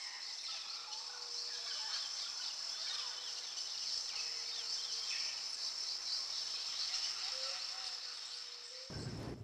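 Outdoor nature ambience: many small birds chirping over a steady, high insect drone. It cuts off abruptly near the end.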